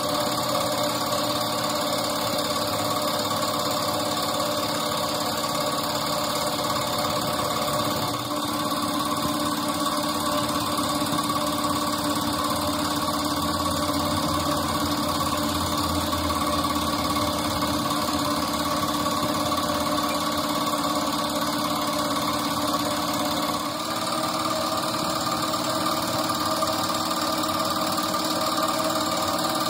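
A machine's motor running at a steady speed with a constant hum; its tone shifts slightly about three quarters of the way through.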